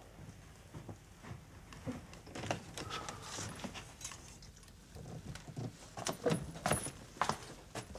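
Handling noises of someone moving about a room: irregular clicks, knocks and rustling, with a cluster of sharper knocks about six to seven seconds in.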